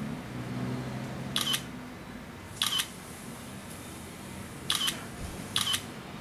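Smartphone camera shutter sounds from an iPhone 6 and an Asus Zenfone 3 taking photos side by side. There are four short double clicks, spread over about five seconds, over a faint room hum.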